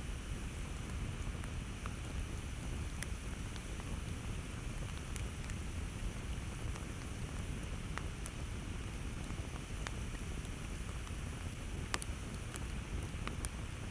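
Campfire burning with a steady low rush and scattered sharp crackles and pops every second or two, the loudest pop about twelve seconds in.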